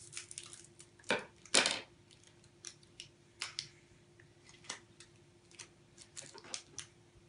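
Small plastic sweet wrappers being crinkled and torn open by hand, a scatter of short crackles and rustles, the loudest two about a second and a second and a half in.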